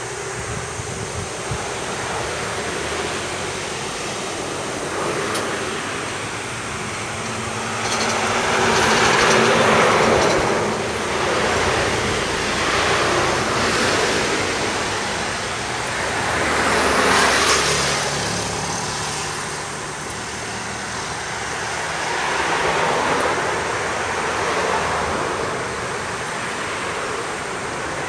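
Road traffic: several cars pass one after another, each swelling and fading over a few seconds, over a constant background hiss.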